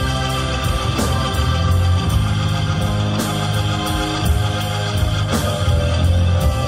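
Loud instrumental rock music: dense sustained chords over a heavy bass, with a steady beat of sharp hits.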